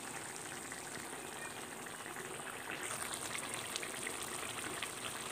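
Fish and brinjal curry simmering in an iron kadai: a steady soft bubbling and crackle of the boiling liquid.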